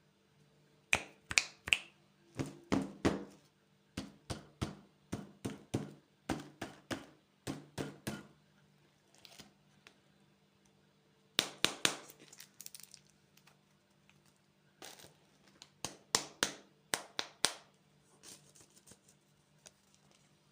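Candy packaging being handled and opened: clusters of sharp clicks and crackles with short pauses between, over a faint steady hum.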